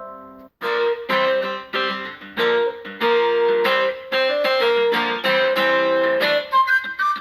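Samsung Galaxy S5 ringtones playing. The previous tone fades out, and about half a second in a new one starts: a quick, rhythmic melody of plucked, guitar-like notes.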